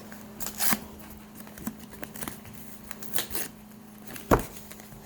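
Plastic toy packaging being handled and picked at: scattered crinkles and small clicks, with one sharper knock a little over four seconds in, over a steady low hum.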